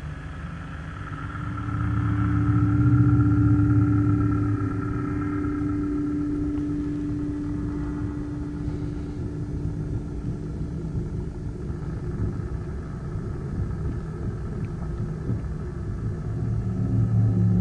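Low rumbling drone with a steady held tone, swelling louder about two seconds in and again near the end.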